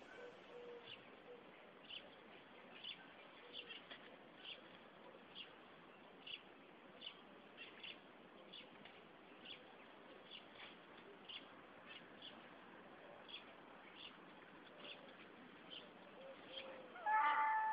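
A bird chirping faintly: short high chirps repeated about once or twice a second over a low steady hiss. Near the end comes a louder, pitched sound lasting about a second.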